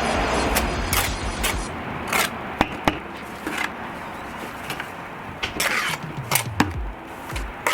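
Masonry work: bricks and tools knocking and scraping at irregular intervals, after a steady rumbling noise that stops about a second and a half in.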